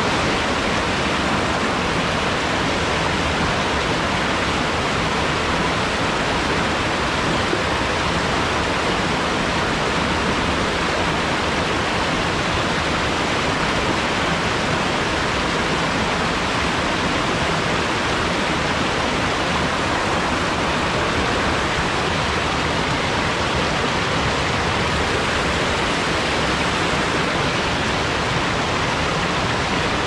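Mountain stream water rushing over rocks in a small cascade, a steady, even rush.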